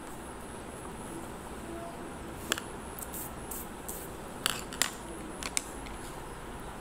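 Handling noise from hands working with pencil and paper on a table: a few light clicks and short scratchy ticks over a steady low hiss, the sharpest clicks about two and a half seconds in and in a cluster between four and a half and five and a half seconds.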